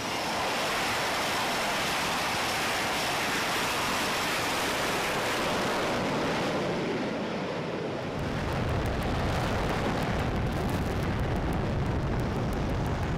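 EA-6B Prowler's two J52 turbojet engines at full power during a carrier catapult launch: a loud, steady rushing noise. About eight seconds in it turns into a deeper rumble as the jet climbs away.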